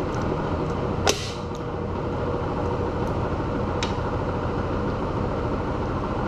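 Steady mechanical room hum, like an air conditioner or fan, with one sharp click about a second in and a fainter tick near four seconds.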